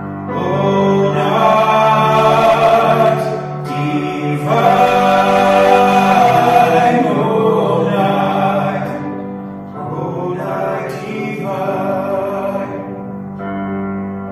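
Two teenage boys singing a hymn in long sung phrases with brief breaks between them, over a held low accompanying note that carries on through the pauses. The second half is softer than the first.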